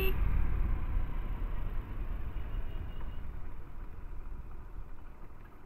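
Hero Splendor 100 cc single-cylinder four-stroke motorcycle riding, its engine and wind noise dying down steadily as the bike slows.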